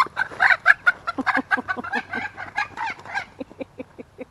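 Chicken squawking in a rapid string of loud calls as it is grabbed by hand. About three seconds in, the calls give way to quieter, evenly spaced clucks.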